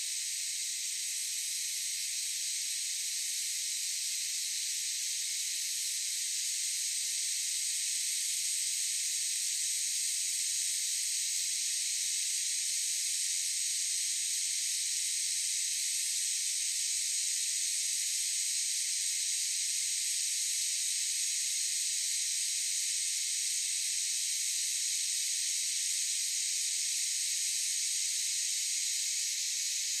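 Cicadas in chorus: a continuous high-pitched buzzing drone that grows a little louder about six seconds in.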